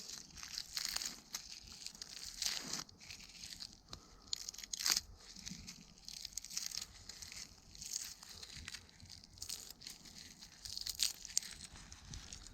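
Irregular crunching, crinkling and tearing of dry material, in uneven short bursts with sharp cracks.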